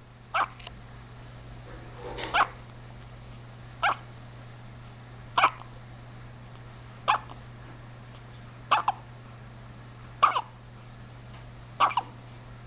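A baby hiccuping: eight short, sharp hiccups at a steady pace of about one every one and a half seconds, several with a quick second catch right after.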